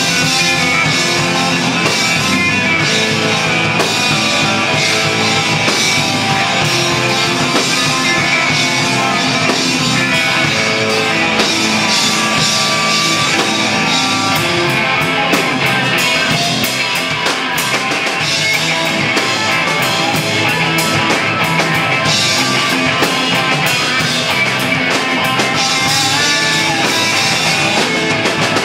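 Rock band playing live: electric guitar and drum kit, loud and continuous.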